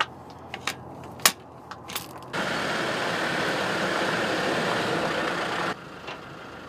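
A few sharp clicks from a hand grease gun being pumped into a driveshaft universal joint. About two seconds in, it cuts to a loud steady rush of a 4x4 driving on a gravel track, heard from a camera on the vehicle, which drops to a quieter engine sound from a distance near the end.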